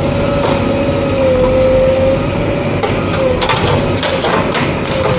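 Heavy earth-moving machine running, a steady engine drone with a slightly wavering whine, and a few knocks about three and a half to four and a half seconds in.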